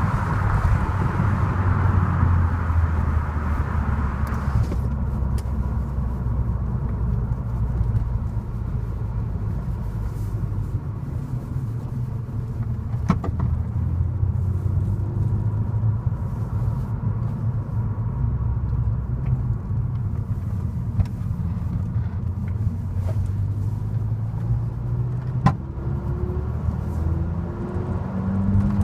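Ford Fiesta ST's turbocharged engine with a Mountune cold air induction kit, heard from inside the cabin while driving. A louder intake rush for the first four or so seconds stops suddenly, the engine then runs at lower load, and the revs rise again near the end.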